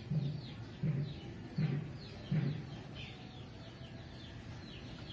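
Birds calling: small birds chirp over and over in short falling notes, while a bigger bird gives four low, short calls about every three-quarters of a second in the first half, then stops.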